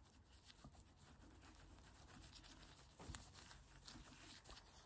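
Near silence with faint handling noise: small clicks and rustles of hands working small packaging and a dust removal sticker, one slightly louder click about three seconds in.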